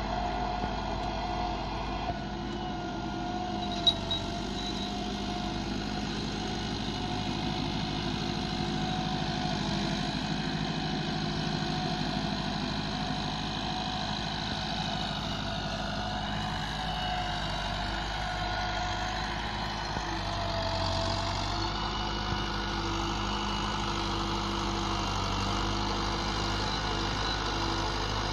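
Massey Ferguson 375 tractor's four-cylinder diesel engine running steadily as it pulls a cultivator through the soil, with one brief click about four seconds in.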